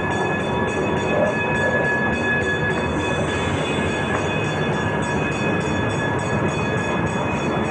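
Manitou and Pikes Peak cog-railway diesel railcar rolling slowly past close by: a steady mechanical running sound with a few high, steady whines over it.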